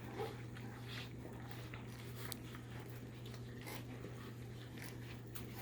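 Five-week-old Labrador retriever puppies eating soaked kibble from food bowls, with scattered small smacking, lapping and bowl clicks over a steady low hum.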